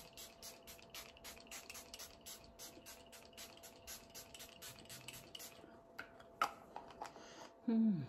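Makeup setting spray pumped in a fast run of short spritzes, about five a second, stopping after about five and a half seconds. A few clicks follow, and near the end a short falling hum of a voice.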